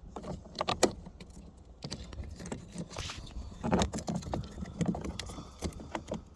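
Power-mirror switch being pushed down into its plastic housing in the door trim: a run of sharp plastic clicks and short rattles in several clusters, the loudest about four and five seconds in, as it is worked into place until it snaps in.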